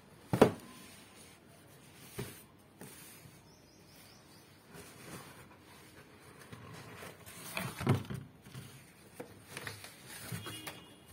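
Cardboard shoebox being handled and opened by hand. There is a sharp knock about half a second in, the loudest sound, and a smaller knock around two seconds. From about seven seconds on come the scrape and rustle of the lid coming off, then the invoice paper and tissue paper inside.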